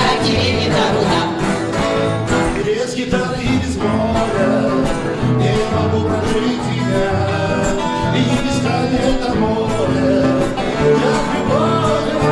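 Upbeat song music with a steady, bouncing bass line.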